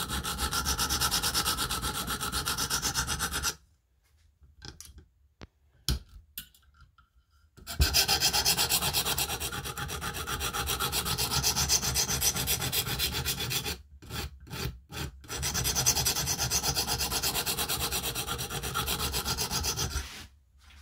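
A coarse 50-grit stone on a KME guided sharpener rasping along the edge of an M390 steel knife blade in quick back-and-forth strokes, grinding out a chip. The strokes pause for a few seconds about four seconds in, break up briefly around fourteen seconds, and stop near the end.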